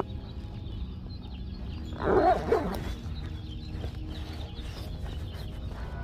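A dog barking twice in quick succession about two seconds in, over a steady low rumble.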